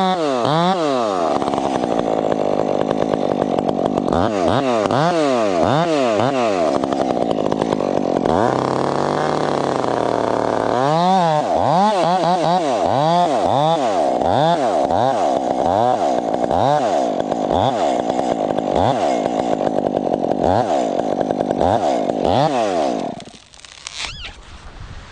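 Chainsaw running at high revs, its engine pitch repeatedly dipping and rising about twice a second. The engine sound drops away suddenly near the end.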